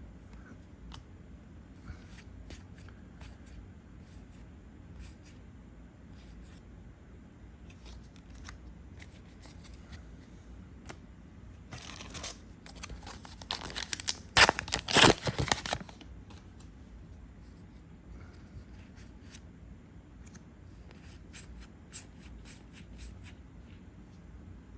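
Trading cards being handled and flipped through, with small soft clicks and rustles. About twelve seconds in, a few seconds of loud crinkling and tearing as a foil booster pack wrapper is torn open.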